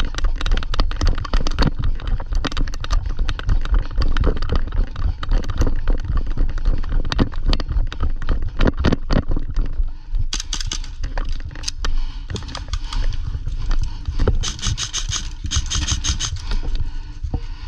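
A player running: quick, uneven footfalls and gear knocking and rattling, over a deep rumble from the movement. In the second half come several short, bright, crackling rattles.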